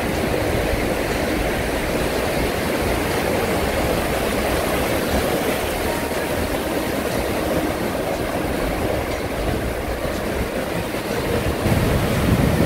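Ocean surf breaking and washing up the beach in a steady rush of water, with a low rumble that grows louder near the end.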